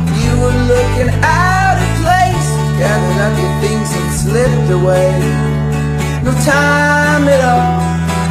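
Indie rock song: strummed acoustic guitar over a steady bass, with a male voice singing the verse.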